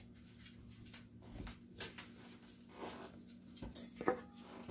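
A few light knocks and clinks of stainless steel measuring cups and a metal canister being handled on a countertop, the loudest near the end with a brief metallic ring, over a low steady hum.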